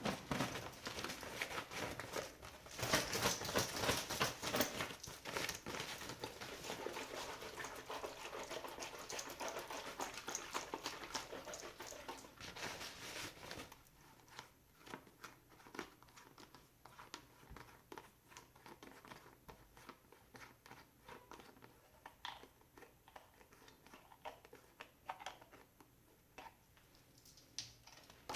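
Close-miked crinkling and rustling of handled material for about thirteen seconds, then quieter scattered taps and clicks.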